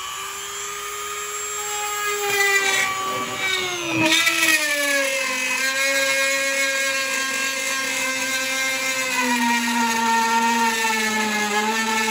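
Dremel rotary tool running at high speed and cutting into a golf cart's plastic front body panel. Its whine drops sharply in pitch about four seconds in, as the bit bites into the plastic, and holds at the lower pitch under the load.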